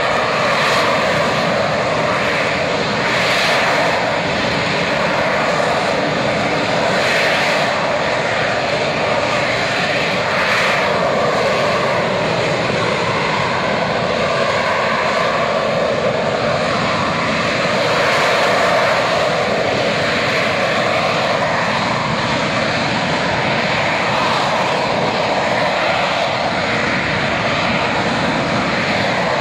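AV-8B Harrier's Rolls-Royce Pegasus vectored-thrust turbofan running loud and steady while the jet hovers and moves slowly on engine thrust, with gentle swells in level.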